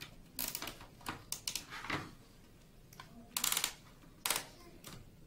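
Irregular plastic clicks and rubbing from fibre-optic leads being pressed into the routing clips of a plastic optical splitter box, with two longer, louder scraping bursts about three and a half and four and a quarter seconds in.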